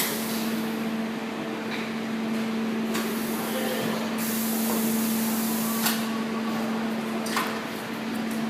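A high-frequency PVC bag welding machine with a sliding table, running with a steady low hum. A few sharp clicks sound through it, and a high hiss stops about four seconds in.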